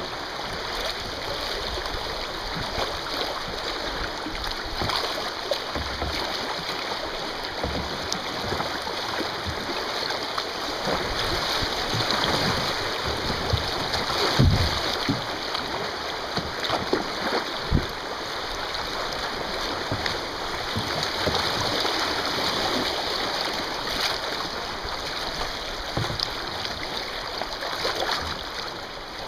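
River riffle rushing and splashing around a kayak's bow, a steady wash of fast shallow water. About halfway through, a couple of short, heavier splashes or knocks stand out as water breaks over the bow.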